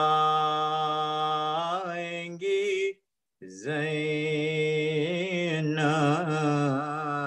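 A man chanting a marsiya, an Urdu elegy, unaccompanied, drawing out long held notes that waver in pitch. The voice breaks off for about half a second near the middle, then resumes with another long held phrase, heard through a video call.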